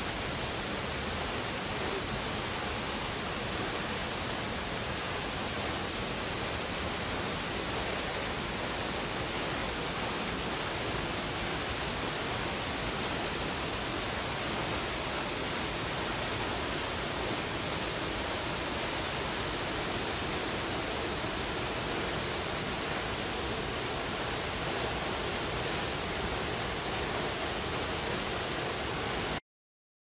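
Waterfall's steady rush of falling water, heard close to the plunge pool, cutting off suddenly shortly before the end.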